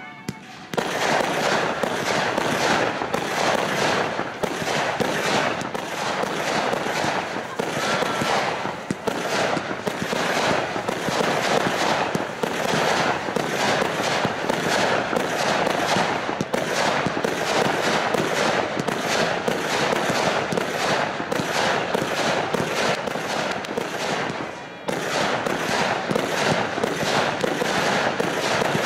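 Fireworks display firing a dense barrage: rapid, continuous bangs and crackles from aerial shells and cakes, starting about a second in, with a brief lull near the end.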